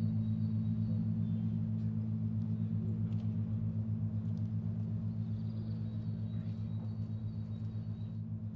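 Large Orthodox church bells humming on after the last strokes of a festive peal: a deep, steady hum of several low tones with an even pulsing beat, slowly fading.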